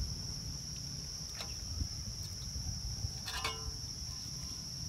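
Insects droning steadily at one high pitch, over a low wind rumble on the microphone. A few brief clicks and scrapes come about a second and a half in and again just past three seconds.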